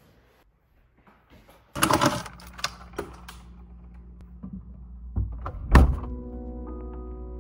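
Refrigerator being opened and jars and containers handled: a sudden rattle about two seconds in, then several clinks and knocks, and one loud thump just before six seconds. Soft music with held chords comes in near the end.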